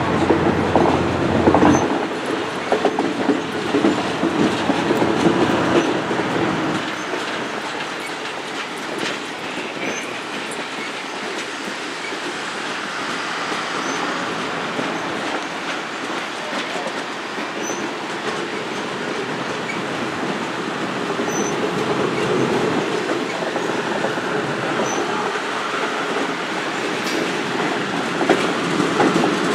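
A train rolling past, its steel wheels clicking over the rail joints, louder in the first several seconds.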